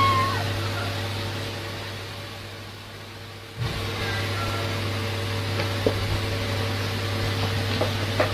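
Steady low hum with a constant tone in it, dipping and then jumping back abruptly about three and a half seconds in. It opens with the end of a rising meow and has a few faint clicks later.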